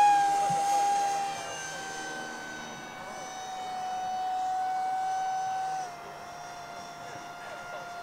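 Electric ducted fan of a 3D-printed RC seagull model plane whining steadily at high power for a go-around. It is loudest at the start and swells again as the model passes, then drops slightly in pitch and level about six seconds in.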